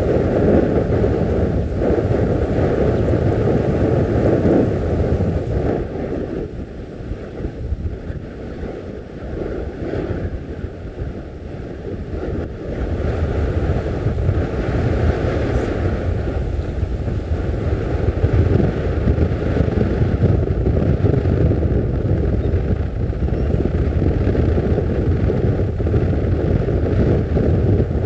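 Strong wind buffeting the microphone over the wash of a rough sea, dropping off for several seconds mid-way and then gusting back up.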